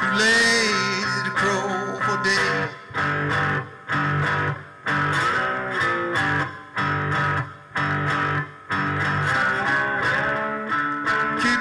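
Three-string fretless cigar box guitar playing a blues line, its notes sliding up and down in pitch over a repeating low riff that stops briefly about once a second.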